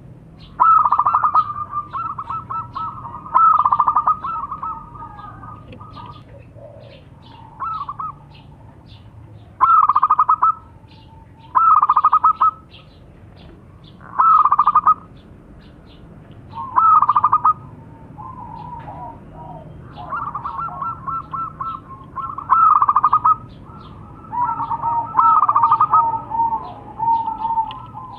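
Zebra doves cooing: loud bouts of rapid, stuttering coos repeat about every two seconds. From a little past halfway, calls come more often and overlap, with a lower, steadier coo running beneath, as birds answer one another.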